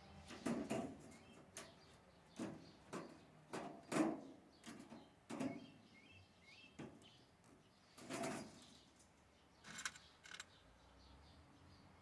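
Sharp metallic clicks and scrapes of hand pliers crimping a wire ring clip onto a galvanized wire-mesh cage, a dozen or so short clinks at uneven intervals.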